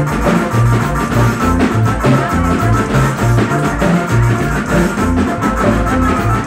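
Loud dance music from a live band: a drum kit, bass and guitar over a steady beat.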